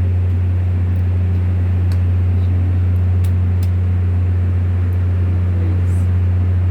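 Volvo TWD1463GE diesel generator engine running at a steady speed with a deep, constant drone. The set is one with a reported misfire.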